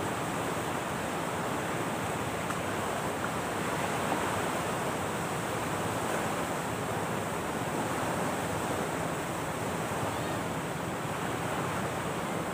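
Steady seaside ambience of surf and wind: a continuous even hiss with no distinct breaking waves.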